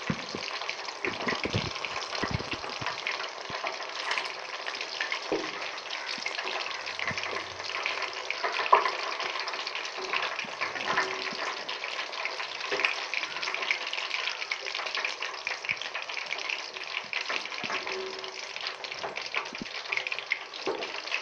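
Chicken pakoras deep-frying in hot oil in a steel wok: a steady sizzle with fine crackling throughout.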